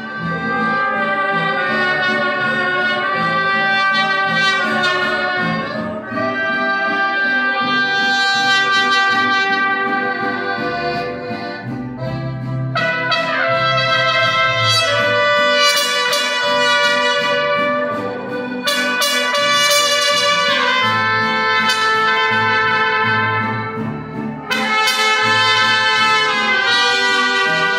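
Mariachi band playing an instrumental passage led by two trumpets in harmony, with guitars underneath. The trumpets play long, held phrases of about six seconds, with brief breaks between them.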